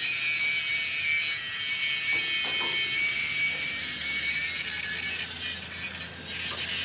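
A power tool working on steel, giving a steady high hiss with a thin whine; it dips briefly near the end.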